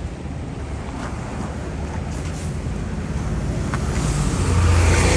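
City bus engine running with road noise, growing louder about four seconds in as a strong low hum comes up.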